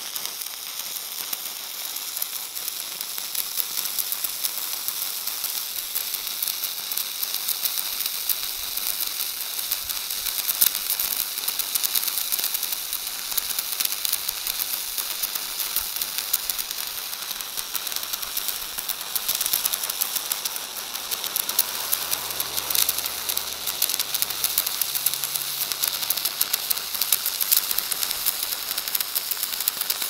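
Stick (MMA) welding arc on steel plate: the arc is struck at the very start, then burns with a steady crackling sizzle full of rapid small pops.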